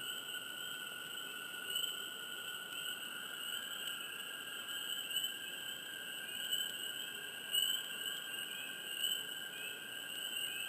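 Swamp chorus of frogs chirping close by: a steady, high-pitched trilling din with individual short chirps standing out every second or two.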